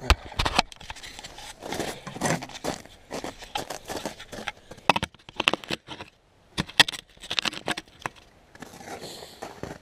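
Irregular clunks, knocks and scraping crackles of handling noise, with a brief lull about six seconds in.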